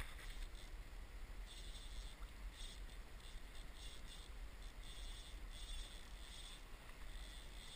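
Faint river water running past, with brief hisses coming and going and a low steady rumble beneath.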